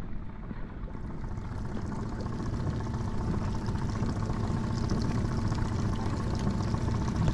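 Outboard motor running steadily at trolling speed, with water washing along the boat's hull. The sound grows slightly louder over the few seconds.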